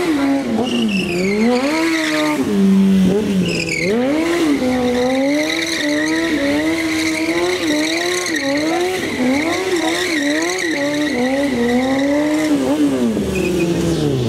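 Sport motorcycle engine revving up and down in quick rises and falls while its rear tyre squeals, sliding on the paving as the bike drifts in tight circles. The squeal holds high and steady through the middle, and the revs drop near the end.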